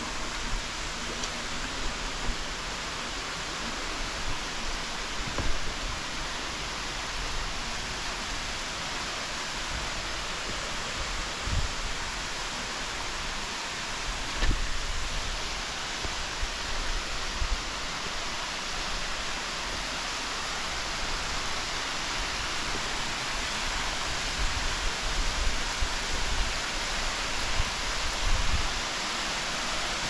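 Steady rush of falling and flowing water from a waterfall, with a few low thuds scattered through and more of them near the end.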